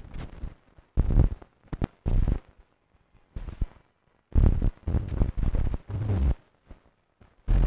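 Experimental film soundtrack of irregular bursts of rough, bass-heavy noise, stopping and starting abruptly with short silences between. The longest burst, about two seconds, comes midway, and there is a sharp click early on.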